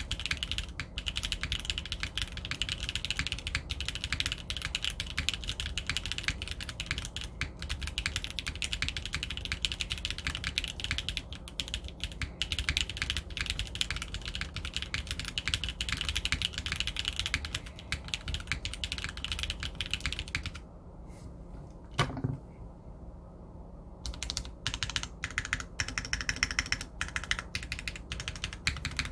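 Typing on a TYP60SL 60% mechanical keyboard with stock Kailh BCP long-pole linear switches on a carbon-fibre plate and GMK Classic Beige keycaps. The keystrokes are rapid and continuous, stop about 20 seconds in apart from one sharp clack about 22 seconds in, and start again about 24 seconds in.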